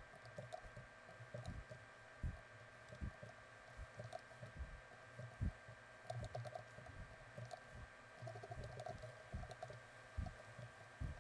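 Computer keyboard keys and mouse buttons clicking irregularly in quick, scattered taps as shortcuts are pressed, faint over a steady low hum.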